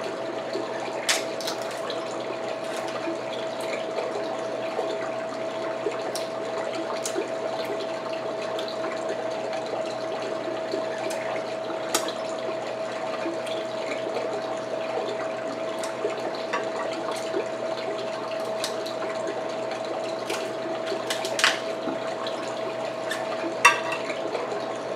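Someone breaking open and eating king crab legs: scattered sharp cracks and clicks of shell, with the loudest a little before the end. A steady hum with one constant tone runs underneath.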